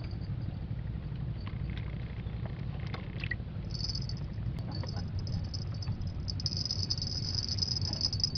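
Insects in the riverside vegetation buzzing in a high-pitched drone that comes in a few seconds in and grows stronger and steadier, over a steady low rumble.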